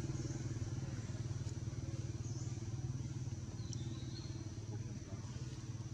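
Motorcycle engine idling: a steady low putter with a fast, even pulse, easing off a little near the end.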